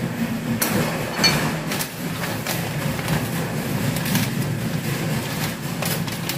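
Plastic pouch of seasoned seaweed flakes crinkling in irregular rustles as it is shaken and its top folded shut, over a steady low rumble of noise from outside.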